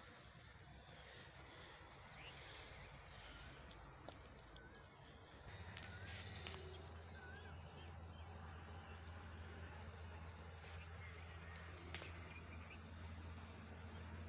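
Faint rural outdoor ambience: a few faint bird chirps and a high, steady insect trill that runs for several seconds from about five seconds in. A low hum joins at the same point.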